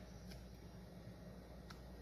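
Near silence: room tone with a steady low hum and two faint clicks, one early and one near the end.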